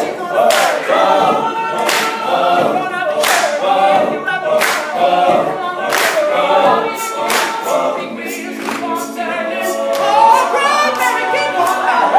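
Male a cappella group singing wordless backing chords, with sharp percussive hits landing on a steady beat.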